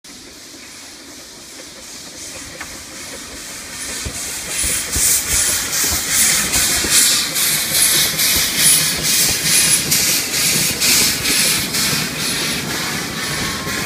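A narrow-gauge NA-class 2-6-2T steam locomotive approaches and passes, getting louder over the first few seconds, its exhaust chuffing about twice a second with a steam hiss. Its wooden passenger carriages then rumble past with the wheels clacking on the rails.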